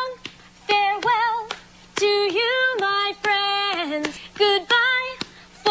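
A woman singing a slow melody in short phrases with brief pauses between them, her held notes wavering with vibrato.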